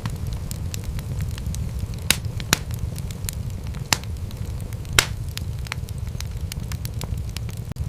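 Wood fire crackling in a fireplace: a steady low rumble of flames under a constant sprinkle of small crackles, with a few louder pops, the loudest about five seconds in.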